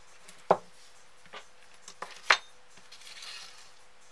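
Light clicks and taps from a small glass nail-product bottle and a metal manicure pusher being handled. The two sharpest clicks come about half a second in and just after two seconds, with a few fainter ticks between them and a faint rustle a little after three seconds.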